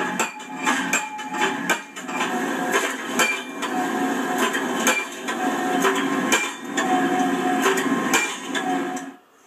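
Tractor-mounted post driver hammering a steel post into the ground: repeated sharp metallic blows, irregular at about one to two a second, some with a short ring, over the steady running of the tractor's engine. The blows stop shortly before the end.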